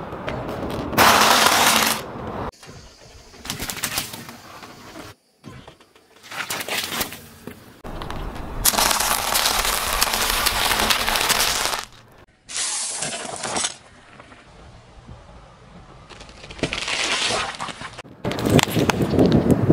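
A car tyre rolling over and crushing brittle things, among them wafer ice cream cones: several separate bouts of crunching and cracking, with abrupt cuts between them.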